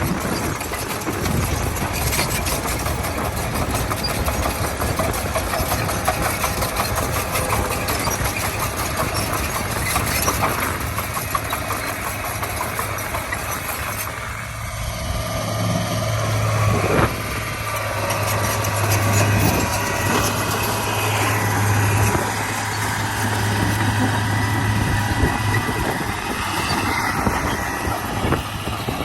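Diesel engine of a Komatsu D41P crawler bulldozer running under load, with steady clatter through the whole stretch. About halfway through the sound changes, and a strong low engine hum comes up and holds for some ten seconds.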